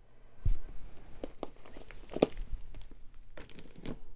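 Clear plastic storage envelopes holding scrapbook paper being handled and shifted, crinkling and rustling with irregular clicks. A low thump about half a second in and a sharper click about two seconds in.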